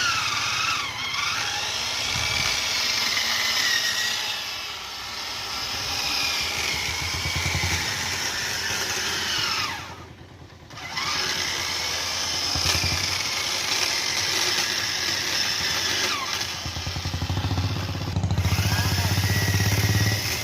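Chainsaw running and cutting, its engine pitch rising and falling with the load. The level drops briefly about halfway through, and the engine runs with a low, steady pulse near the end.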